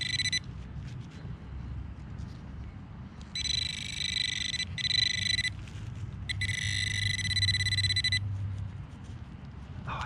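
Handheld metal-detector pinpointer buzzing as its tip is worked into the soil of a dig hole, sounding on a small buried target. A high, slightly warbling tone comes in several on-off bursts, the longest nearly two seconds near the end.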